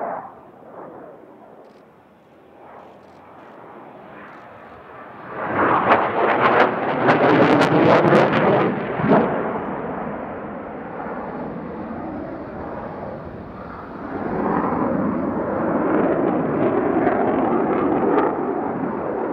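The F/A-18C Hornet's twin General Electric F404 jet engines roar overhead. The noise swells about five seconds in, with loud crackling for a few seconds, then eases and builds again near the end.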